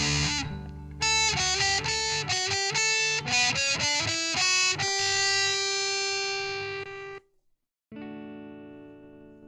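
Punk song ending on electric guitar: after the band drops out, the guitar plays a run of single notes and a held note that cuts off about seven seconds in. After a brief gap, one final chord is struck and left to ring and fade.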